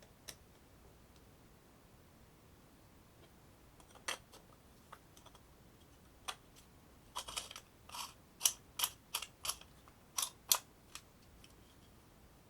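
Light, sharp clicks and taps of small hard objects being handled: a few scattered ones, then a quick run of about ten clicks in the second half.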